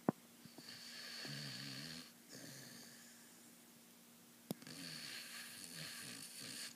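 Slow snoring: two long rattling breaths, one beginning about half a second in and another about four and a half seconds in. Each is preceded by a short sharp click, the first of which is the loudest sound.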